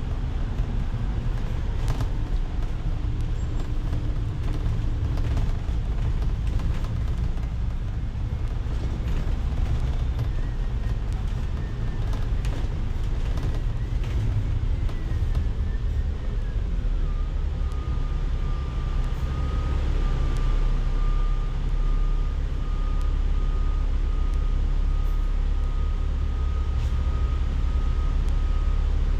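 Ride inside a moving city bus: a steady low engine and road rumble, with a faint whine that wavers and then settles into one steady tone a little past halfway.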